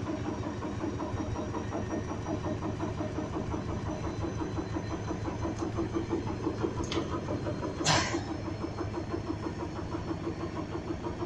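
Washing machine drum turning in its final spin with a very unbalanced load, making a steady rhythmic thumping of about four or five beats a second, with one brief loud knock about eight seconds in.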